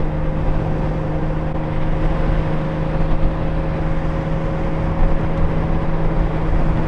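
Honda Gold Wing GL1500 flat-six engine running at a steady cruise, with wind and road noise on the riding microphone; its pitch holds constant.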